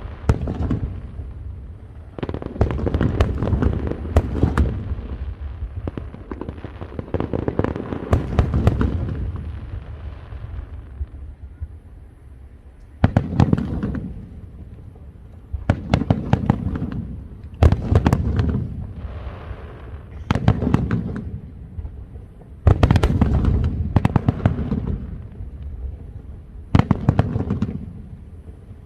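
Fireworks going off in a run of volleys, each a dense crackle of rapid bangs lasting one to three seconds, with short lulls between them.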